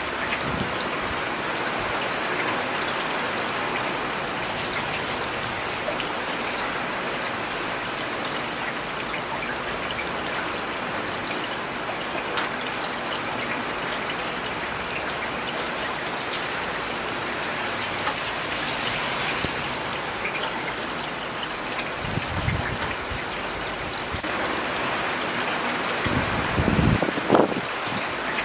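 Steady rain falling on city surfaces, an even hiss of drops. Two brief low rumbles swell and fade in the last third.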